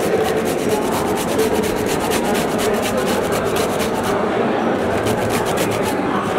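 Pumpkin being grated on a flat stainless-steel hand grater into a steel bowl: quick, even rasping strokes, several a second.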